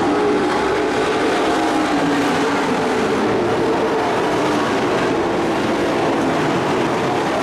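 Engines of a field of dirt-track race trucks running at speed around the oval, a steady loud drone whose pitch wavers up and down as the trucks go by.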